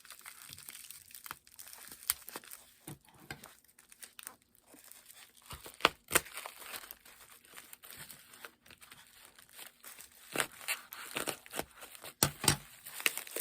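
Packing wrap being pulled off an item by hand, crinkling and tearing in irregular crackles and rustles that grow louder and busier near the end.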